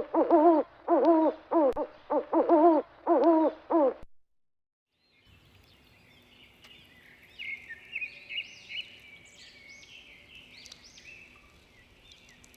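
An animal giving about six short, pitched calls in four seconds, then after a brief silence, birds chirping and twittering.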